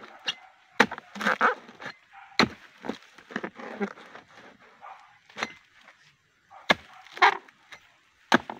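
Pole-mounted harvesting chisel chopping into the fibrous frond and bunch stalks of an oil palm: sharp cracking strikes every second or two, with rustling and splintering of the stalks between them.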